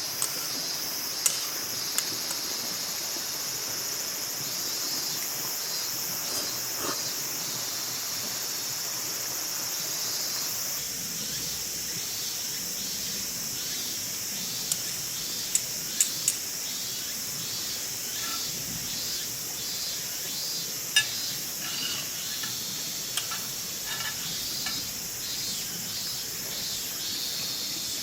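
Insects chirring steadily in a high-pitched, pulsing chorus, with a few sharp clicks scattered through it, the loudest about a second in, around fifteen to sixteen seconds in, and near twenty-one seconds in.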